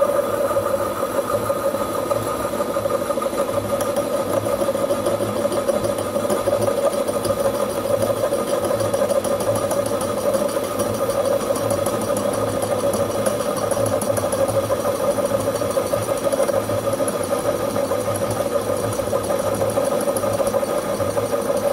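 Holbrook C8 metalworking lathe running with the feed engaged through its gearbox: a loud, steady gear whine over a pulsing mechanical hum.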